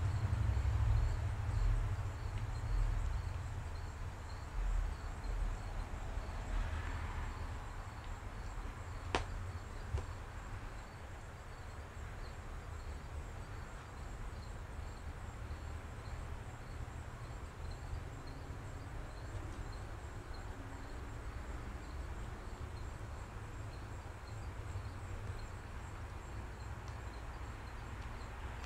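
Faint, evenly pulsing insect chirping over a low rumble that eases off after the first few seconds, with one sharp click about nine seconds in.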